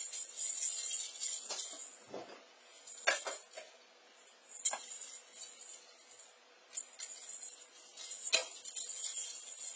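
Small bell inside a cat's jingle ball jingling as the ball is tossed and rolls, with a few sharp clinks along the way.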